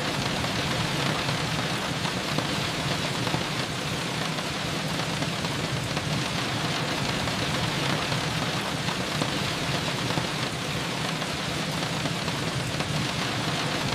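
Steady rain falling, an even hiss with a steady low hum underneath.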